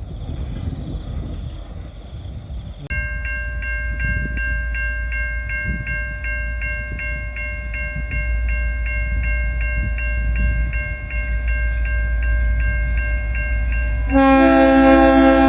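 Level crossing bells ringing steadily, about two to three strikes a second, over the low rumble of an approaching diesel locomotive. About a second before the end, the N class locomotive's horn sounds, loud and full-chorded.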